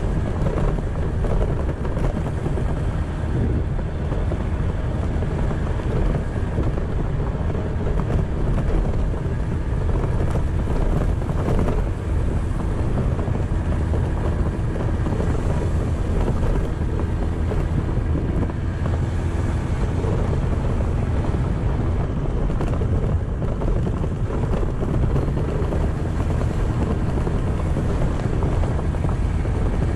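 Kymco's engine running steadily on the move, with wind noise on the microphone and tyre noise on a gravel road.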